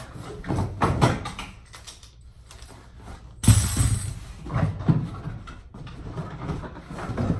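Cardboard box and packing rustling, scraping and knocking as parts are handled and pulled out of a shipping box, with a sudden louder scrape about three and a half seconds in.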